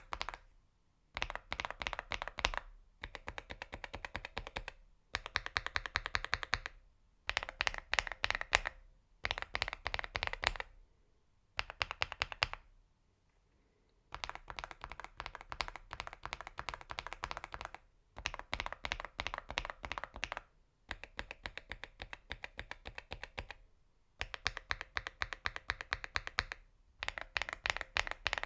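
Fast typing on an AULA F99 full-size mechanical keyboard fitted with several different switch types, tested back to back: bursts of rapid key clicks, each lasting a second or two, with short pauses between them and one longer pause about halfway through.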